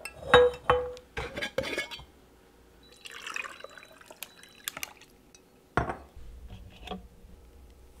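Glass mason jars clinking and a screw lid being handled with sharp clicks, then coffee poured over ice cubes in a glass jar about three seconds in, with ice clinking against the glass. A single loud glass knock comes near six seconds in.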